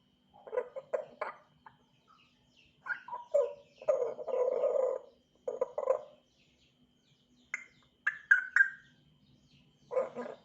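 African grey parrot calling in short bursts: quick runs of notes, a longer, harsher call about four seconds in, and a few high clear whistles around eight seconds.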